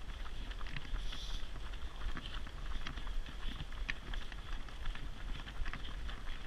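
Runners' footsteps slapping quickly and irregularly on a tarmac road, over a steady low rumble.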